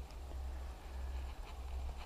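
Quiet open-air lakeside ambience: an uneven low rumble of wind on the microphone, with a few faint ticks.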